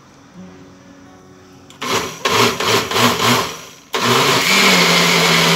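Countertop blender pureeing toasted chilies and liquid for mole sauce. It is run in several short pulses about two seconds in, then switched on to run continuously, its motor rising and settling to a steady pitch.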